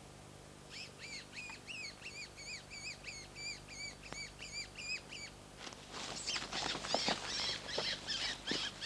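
High-pitched squealing calls: first a regular series of arched squeaks, about three a second, then, about five and a half seconds in, a louder, harsher run of rapid squeals.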